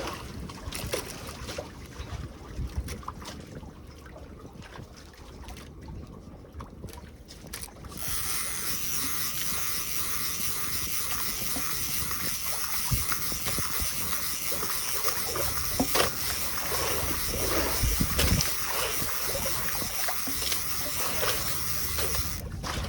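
Water sloshing and splashing around a small fishing boat at sea, with wind noise. About eight seconds in a steady high hiss sets in and runs until it cuts off suddenly near the end, with a few knocks along the way.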